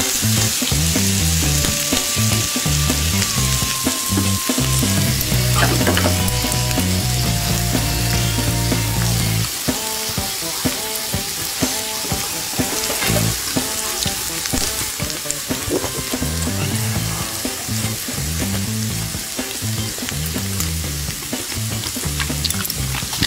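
Beef sizzling steadily on a hot stone grill pan, with occasional clicks of metal tongs and kitchen scissors. A soft music track with a low bass line runs underneath.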